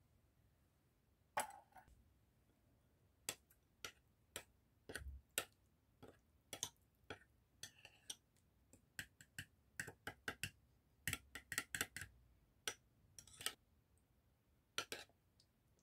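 Metal spoon stirring a thick mayonnaise dressing in a small glass bowl, clinking and tapping against the glass in irregular sharp clicks that start about a second and a half in.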